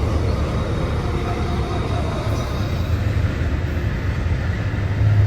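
Train passing at speed: a steady, unbroken rumble of wheels on rail.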